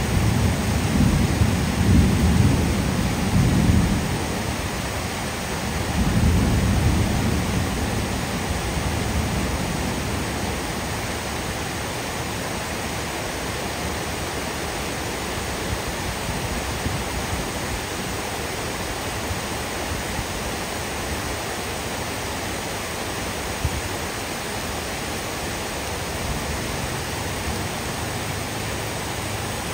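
Heavy rain falling steadily on tiled roofs and trees. Thunder rumbles low over the first few seconds, swells again a few seconds later, then fades out under the rain.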